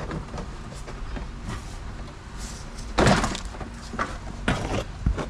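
Cordless impact wrench run in a few short bursts on a brake caliper's bolts, the longest and loudest about 3 seconds in, with metal clunks between them.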